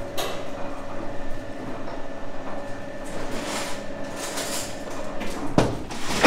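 A warm hard-candy batch being rolled and worked by hand on a work table: rubbing and handling noises, with sharp knocks on the table near the end, over a steady hum.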